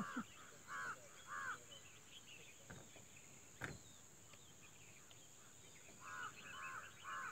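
A bird calling in a series of short, evenly spaced calls, about two a second, in the first second and a half and again near the end. Two faint knocks come in the middle.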